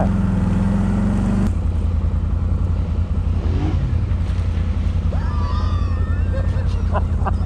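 Engine of a tracked off-road vehicle running steadily under way through deep snow. Its note drops to a lower, rougher drone about a second and a half in. Wind noise on the microphone.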